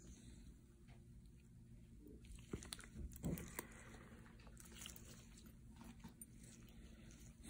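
Near silence: faint room hum, with a few soft clicks and taps of surgical instruments (forceps, needle driver, scissors) being handled during skin suturing, clustered about three seconds in.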